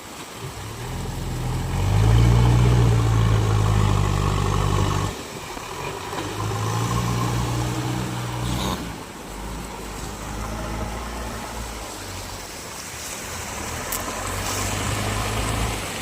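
Diesel engine of a JCB loader working, revving up hard twice in the first half and then running steadier and lower, rising again a little near the end.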